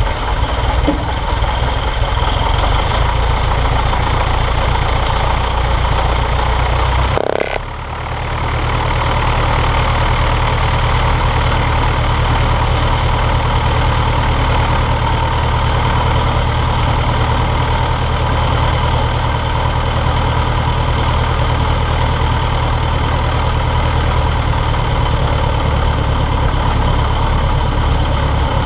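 A 1938 J-3 Cub's engine idling steadily at one pitch as the plane taxis, with a brief drop in level about seven seconds in.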